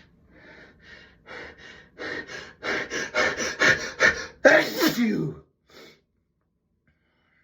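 A person building up to a sneeze: a run of gasping breaths that grow louder and quicker, then a sneeze about four and a half seconds in, followed by one short breath.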